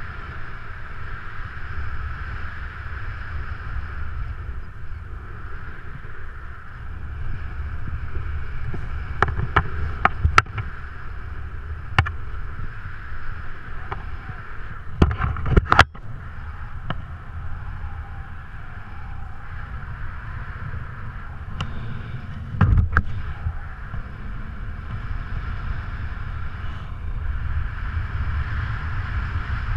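Wind rushing over a helmet-mounted action camera during parachute canopy flight, a steady rumble and hiss. A few sharp knocks and clicks come in clusters about nine to ten seconds in, around twelve and fifteen to sixteen seconds, and again near twenty-two seconds.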